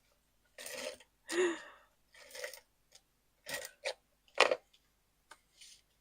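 Cardstock and a plastic embossing folder being handled: a series of short rustling, scraping sounds, about eight of them with gaps between.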